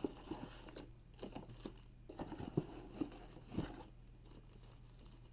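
Foil trading-card pack wrapper crinkling as it is peeled open by hand, with cards and packs being handled: faint scattered rustles and soft taps.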